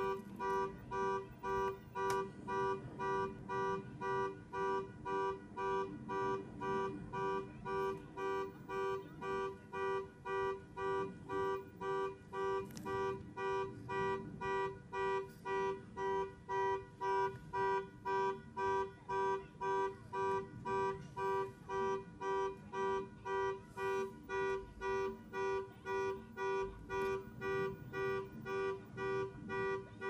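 Car alarm sounding the car's horn in steady, evenly spaced honks, about two a second, without a break.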